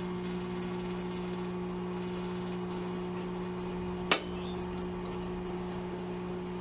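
Hallicrafters S-120 shortwave receiver playing through its speaker with no station tuned in: a steady low hum under a hiss of static. One sharp click about four seconds in.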